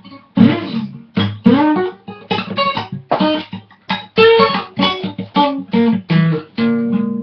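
Blues guitar playing: a run of picked notes and chords in short, rhythmic strokes, some notes bent in pitch.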